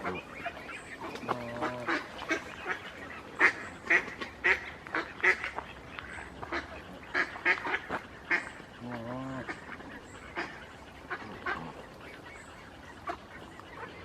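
A flock of geese honking: many short calls overlapping irregularly, with two longer, wavering honks about one and a half and nine seconds in.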